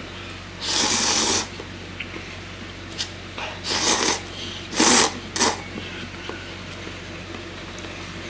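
Slurping cup noodles and broth: one long slurp about a second in, then a run of shorter slurps between about three and a half and five and a half seconds.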